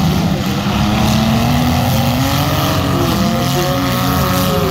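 Several demolition-derby compact cars' engines running and revving together, their pitches rising and falling over one another.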